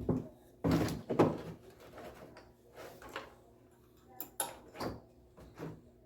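Brake shoes being handled and fitted onto a VW Beetle's drum brake assembly: a series of sharp knocks and clatters, the two loudest about a second in and smaller ones spread through the rest.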